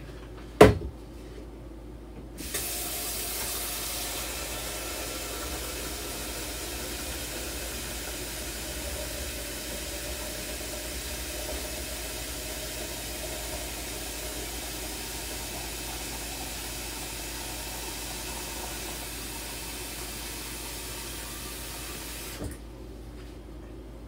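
Water running from a sink tap into a plastic pitcher, a steady rush that starts a couple of seconds in and is shut off abruptly near the end. A single knock comes just before the water starts.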